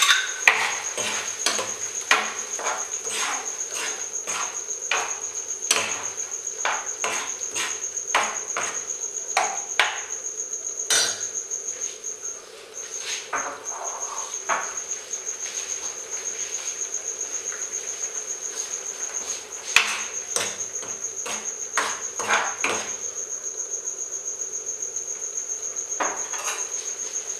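A cricket chirping in a steady, rapidly pulsed high trill, with a short break about twelve seconds in. Over it, a steel spoon stirring curry in a metal pan clicks and knocks against the pan, often in the first half and a few more times later on.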